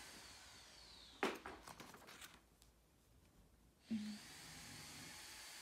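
A short run of faint crackling and crinkling from plastic packaging being handled, about a second in, over quiet room tone; the sound then drops out completely for about a second.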